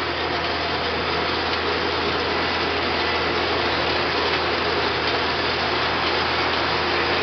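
Allis-Chalmers 7000 tractor's straight-piped diesel engine running steadily, heard from inside the cab, which makes the exhaust louder.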